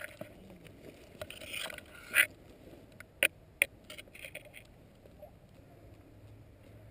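Rustling and crunching through dry woodland leaves and brush, then two sharp cracks about a third of a second apart a little past three seconds in, followed by a few fainter clicks.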